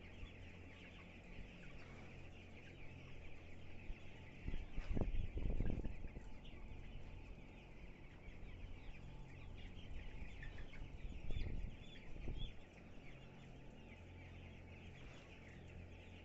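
A shedful of 18-day-old broiler chickens calling at once, a continuous chatter of small cheeps and clucks, over the steady low hum of the shed's exhaust fans. Twice, about five seconds in and again about eleven seconds in, a louder low rumble rises over it.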